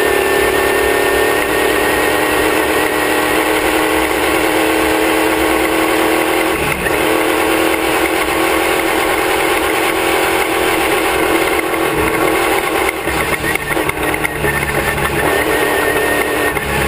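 Class 1 off-road race car's engine running hard at a steady high pitch, heard from just behind it, with a few brief knocks from the car over rough ground.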